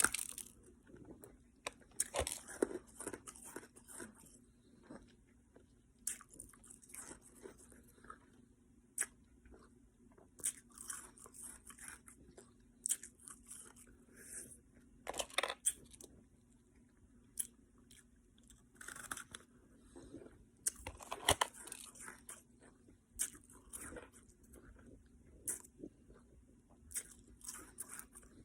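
Ice being chewed: irregular sharp crunches as cubes are bitten and ground between the teeth, with pauses between bites. A faint steady hum runs underneath.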